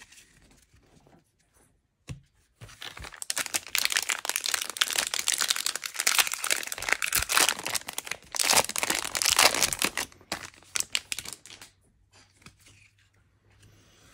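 A baseball card pack's wrapper being torn open and crinkled by hand. There is loud crackling from about three seconds in, dying down near the end into faint rustling.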